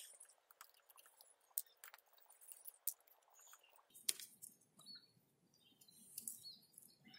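Faint, scattered small clicks and ticks of a screwdriver working the screws on top of a distributor-mounted ignition coil as they are loosened, with faint handling rustle in the second half.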